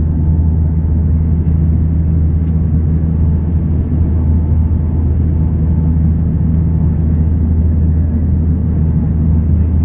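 Steady low drone of a Bombardier Dash 8 Q300's turboprop engines and propellers, heard inside the passenger cabin on approach, with a faint higher tone over the hum.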